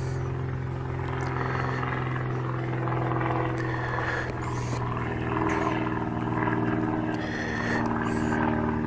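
A steady engine hum, low and even with several overtones; over it, a few short faint scrapes of a knife cutting into grapefruit peel.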